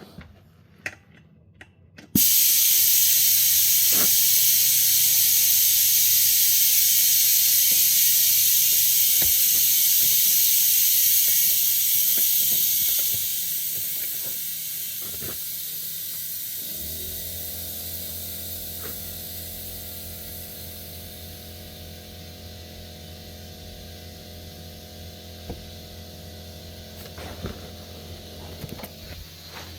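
Compressed air hissing into a flat tractor tire as it is inflated to reseat the bead under a ratchet strap. The loud steady hiss starts suddenly after a few clicks and slowly fades from about halfway on. A steady motor hum comes in about 17 seconds in.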